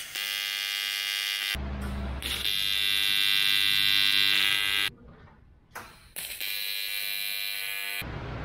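AC TIG welding arc buzzing steadily while welding aluminum standoffs onto an aluminum radiator. The arc runs for about five seconds, breaks off, and strikes again about a second later.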